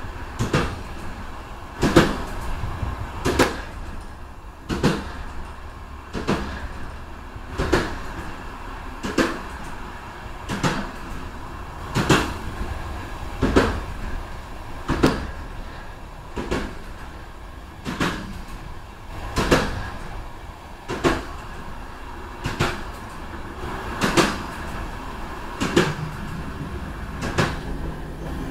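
Train wheels clicking over rail joints, a sharp knock about every one and a half seconds, over the steady low rumble of the train running.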